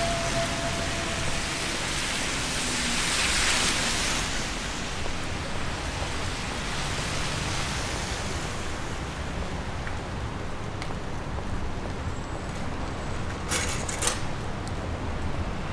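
Steady hiss of rain on a wet city street. A louder hiss swells and fades about three seconds in, and a short cluster of sharp clicks comes near the end.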